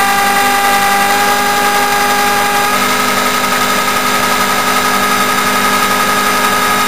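Electric drill running steadily at speed, spinning a 180 V DC treadmill motor as a generator into a solar charge controller that is charging a battery bank. A steady whine with several held tones; one of them drops out a little over a third of the way in.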